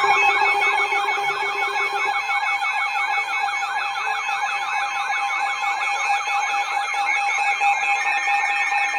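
Emergency alert attention tone: a steady electronic tone with a rapidly warbling, siren-like tone sweeping up and down over it several times a second. A lower hum drops out about two seconds in.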